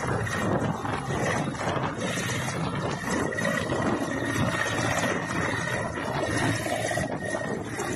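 Military helicopter running on the ground: steady rotor and engine noise with a thin, high turbine whine.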